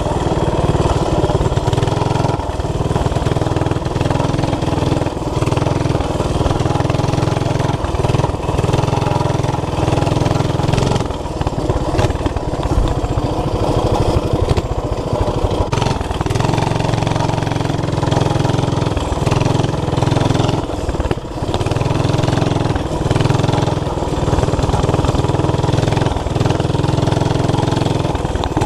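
Old flathead 5 hp Briggs & Stratton single-cylinder engine on a mini bike, running through its homemade header with the governor removed; the engine note rises and falls several times as the throttle is worked.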